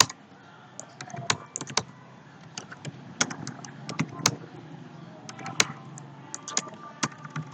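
Computer keyboard keys being typed in short irregular runs of clicks, as a terminal command is entered, over a faint steady background hum.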